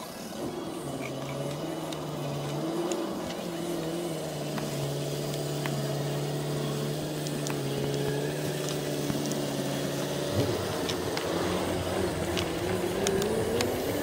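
A motor vehicle's engine running nearby with a steady hum. Its pitch drops about ten seconds in and rises again near the end. Scattered light clicks of a knife cutting vegetables over a foil pan sit on top.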